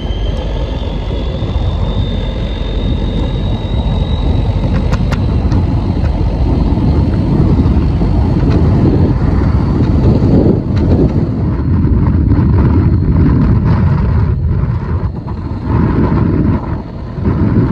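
Wind and engine noise from a Suzuki Burgman 650 maxi-scooter riding at road speed, a loud steady rush. A faint whine climbs in pitch over the first few seconds, and the rush turns uneven near the end.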